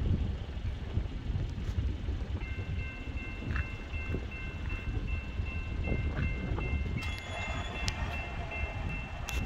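Railroad grade-crossing warning bell starting to ring about two seconds in, a rapid, even ding that keeps on, with more ringing joining later: the crossing has activated for an approaching train. A low rumble runs underneath throughout.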